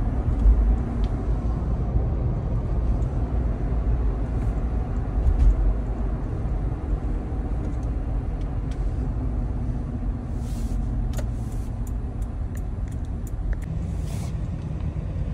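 Cabin noise of a 5th-generation Toyota 4Runner on the move: a steady low rumble of road and engine at low revs, around 1,000 rpm and 20 to 40 mph. A few short clicks and ticks come in the last few seconds.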